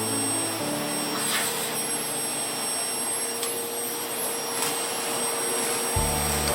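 Steady whooshing motor-like noise with a held hum, under soft background music whose low notes sound at the start and again near the end.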